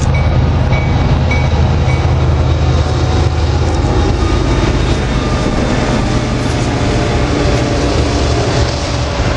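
Diesel locomotives of a CSX freight train passing close by, their heavy engine rumble easing after the first few seconds as the freight cars follow, steel wheels rolling steadily on the rails.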